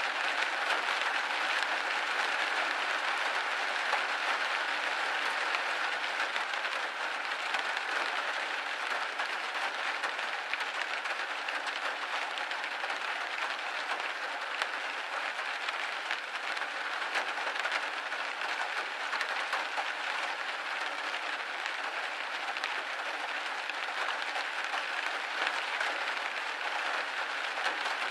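Steady rain pattering on a window pane: a dense, even hiss of drops with fine scattered ticks.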